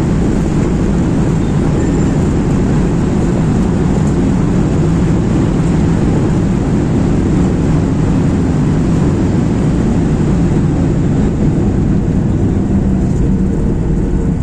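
Steady low rumble of a Boeing 737-800 heard from inside the passenger cabin: jet engine and airflow noise, even and unbroken.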